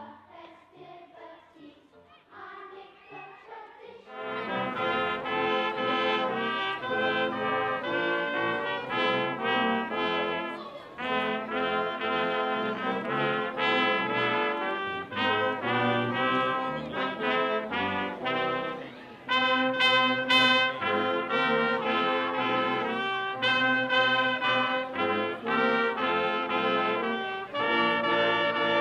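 Brass ensemble of French horns and trumpet playing a tune, starting loud about four seconds in after a few quieter seconds, with a brief break near the middle.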